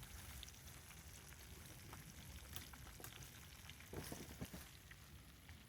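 Lard in a frying pan over a wood fire sizzling faintly and steadily, with scattered small crackles.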